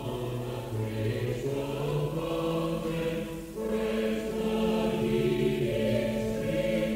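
A choir singing slow, held chords of a hymn-like song, moving to a new chord about halfway through.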